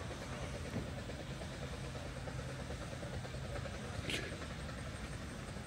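Half-scale Tom Thumb replica steam locomotive, with its single vertical cylinder, running on the track at a distance with a steady mechanical sound. A brief high hiss sounds about four seconds in.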